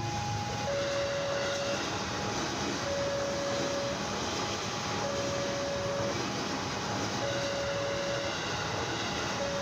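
Electric train running past with a steady rumble and rail noise, while an electronic two-tone signal alternates slowly between a lower and a higher pitch, each held about a second.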